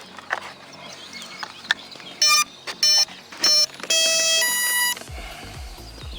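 Electric RC plane's speed controller beeping through its motor as the flight battery is connected: three short beeps, then a longer beep that steps between two pitches, the controller's power-up and arming tones.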